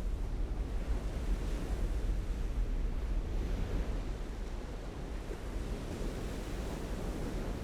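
Rushing water, with low wind rumble on the microphone.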